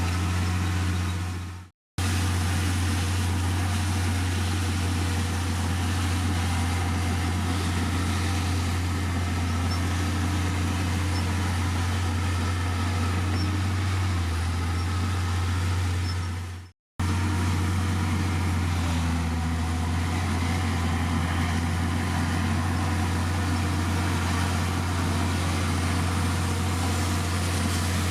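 Heavy diesel engine of a Komatsu D51PX bulldozer running steadily with a deep drone. The sound fades out and drops away briefly twice before coming straight back.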